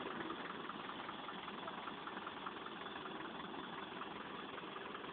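Vehicle engine idling steadily, with a faint regular ticking.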